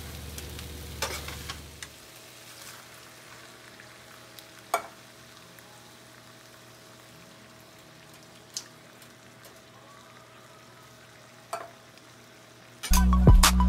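Chicken, sausage and bell peppers frying in a pan while being stirred with a spoon. About two seconds in the sizzle drops to a faint frying sound with a few sharp clicks of utensils. Music starts near the end.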